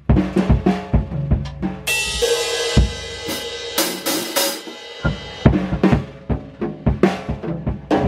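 A young child hitting a drum kit with sticks: uneven, scattered drum strikes, with a cymbal crashed about two seconds in and left ringing for a few seconds.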